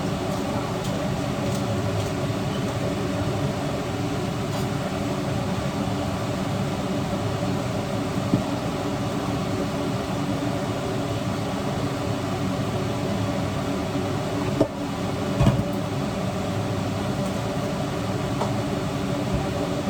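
Steady mechanical hum of a running motor or appliance, with a few faint clicks and a brief drop about three-quarters of the way through.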